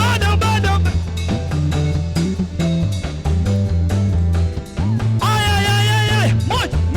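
Praise band music: bass guitar and drums keep a steady beat, and a held melody note comes in about five seconds in.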